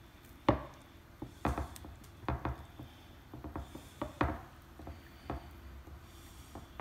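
Scattered sharp taps and knocks from handling a raw Cornish game hen skewered on a metal rotisserie spit and fork on a wooden cutting board while its legs are tied with twine; the loudest knocks come about half a second in and about four seconds in.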